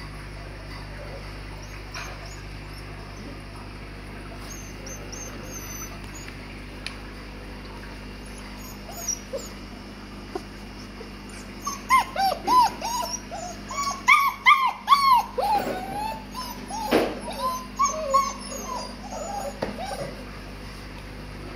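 White Swiss Shepherd puppies whimpering and yipping. About halfway through, a run of short high whines, each rising and falling, goes on for several seconds over a steady low hum.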